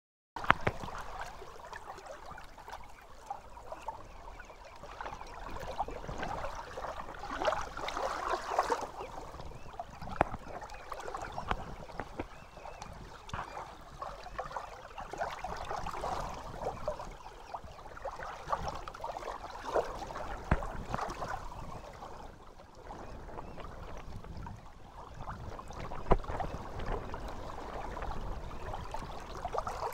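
Choppy lake water lapping and splashing in small waves, with a few sharper splashes, over a low rumble of wind on the microphone.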